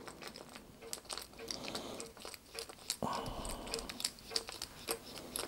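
Faint clicks and light scraping of a Millers Falls hand vise's wooden handle being unscrewed from its threaded steel body, with a short rustle of handling about three seconds in. A regular faint tick about twice a second runs under it.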